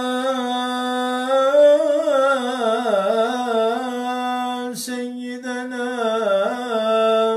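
A man's solo voice chanting the salâ, the Arabic call of blessing on the Prophet, in long held notes with wavering, ornamented melismas. There is a quick breath about five seconds in, and the held note stops abruptly at the end.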